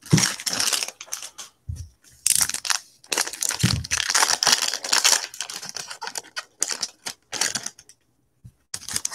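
Foil trading-card pack wrappers crinkling and tearing as they are opened and handled, in a run of rustling bursts with a couple of dull knocks.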